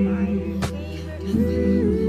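Background nasheed: voices holding long sung notes with no instruments, gliding to a new note a little past halfway. A brief click sounds about half a second in.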